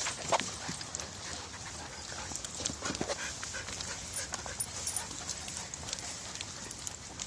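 A group of dogs out walking: irregular clicks and scuffs of paws and footsteps on the trail, with dog sounds such as panting.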